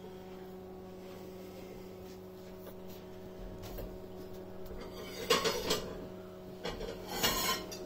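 Kitchenware clattering as dishes and utensils are handled at the stove: a bout of knocks and scrapes about five seconds in and another near the end, over a steady low hum.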